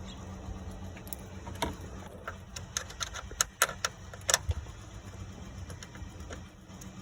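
A quick string of sharp metallic clicks and clinks from hand tools and small parts being handled during radiator removal, bunched together from about a second and a half to four and a half seconds in, over a steady low hum.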